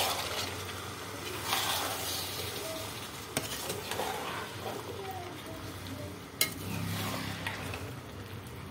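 Metal spoon stirring diced vegetables in a metal kadai, the vegetables sizzling in the hot oil and masala, with scraping swishes and a couple of sharp clinks of the spoon against the pan.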